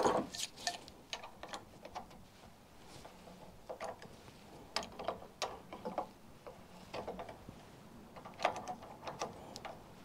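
Scattered small metallic clicks and ticks of a spanner and pliers on a motorcycle fork's top cap and damper-rod locknut as the top cap is locked off. They come in short clusters, about half a second in, around the middle, and again near the end.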